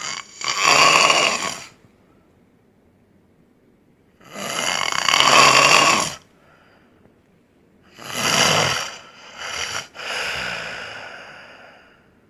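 A man snoring loudly in deep sleep: three long snores about four seconds apart, the last followed by two shorter ones, the final one fading away.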